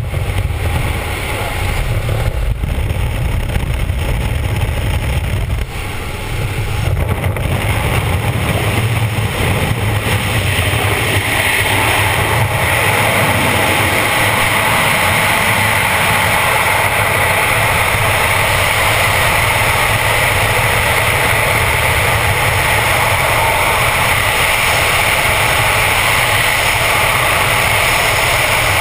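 Freefall wind rushing over the camera's microphone, loud and steady. It builds over the first several seconds, as the jumpers leave the aircraft's engine and slipstream noise at the open door, and is even from about ten seconds in.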